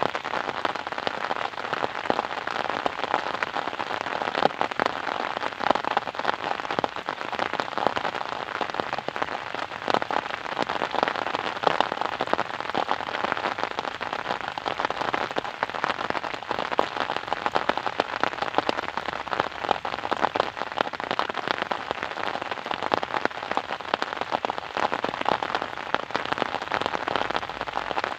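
Steady rain falling, a dense, even patter of many individual drops.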